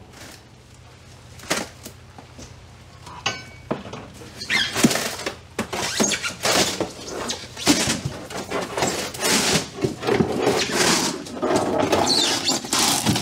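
Pry bar levering up the fibreglass tabbing and rotten wood of a boat's freezer box. It starts with a few light knocks, then from about four seconds in turns to a dense, irregular run of loud scrapes and cracks as the material is forced loose.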